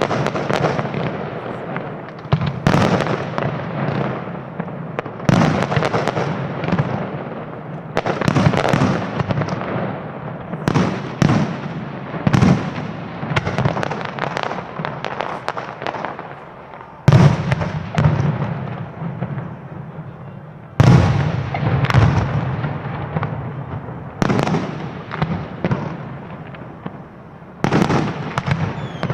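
Aerial fireworks shells bursting one after another, each sharp bang trailing off into crackling. Two of the heaviest bangs come just past halfway through, a few seconds apart.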